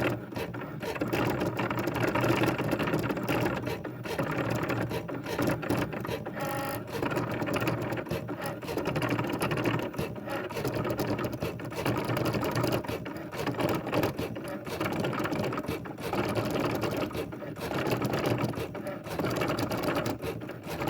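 Continuous mechanical rattling and clattering, swelling and easing in loudness every few seconds.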